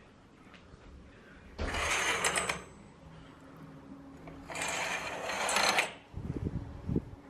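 Curtains being drawn open, two rattly scraping swishes about a second long each, then a few low thumps of the camera being handled.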